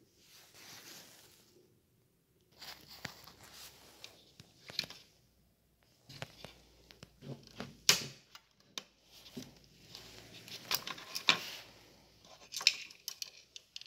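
Hands handling a Husqvarna 445 II chainsaw's plastic housing and working its bar-oil filler cap loose: irregular scraping and rubbing with a run of sharp plastic clicks, loudest near the middle and again a few seconds later.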